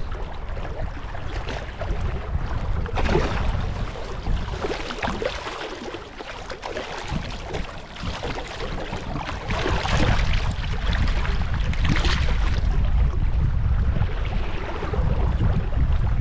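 A hooked striped bass splashing and thrashing at the surface as it is brought to hand, coming and going for several seconds. Wind buffets the microphone throughout and grows stronger near the end.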